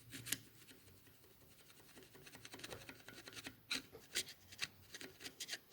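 Faint rubbing, then several short light scrapes and clicks about four seconds in, from hands handling the VW Type 1 engine case half at the worn main bearing journal.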